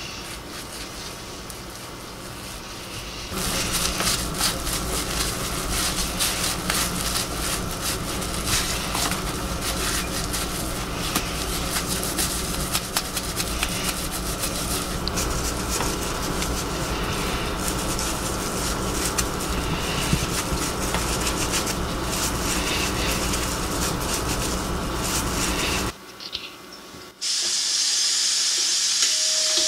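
Dishes being washed by hand in a sink of soapy water: a brush scrubs a mug, with scratchy scrubbing, small clatters and a steady hiss, close up. The scrubbing grows louder about three seconds in and drops out briefly near the end, and a steady high tone begins just before the end.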